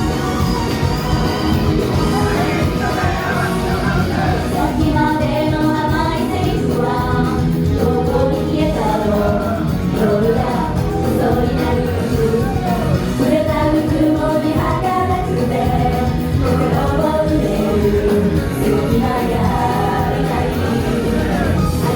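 Live J-pop idol group performance: women's voices singing together over a loud backing track.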